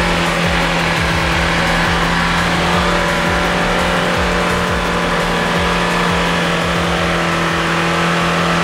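A car engine held at high, steady revs under hard throttle, its pitch unchanging, as the vehicle struggles up a slippery dirt climb.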